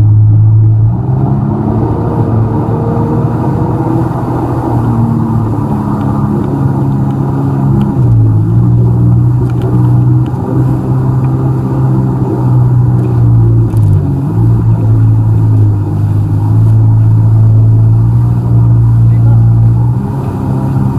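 Jet ski engine running loud and steady, its pitch shifting up and down a few times as the throttle changes.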